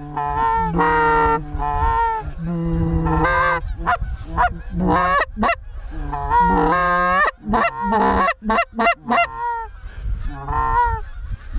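Canada goose honks and clucks, loud and overlapping, with runs of quick short clucks in the middle.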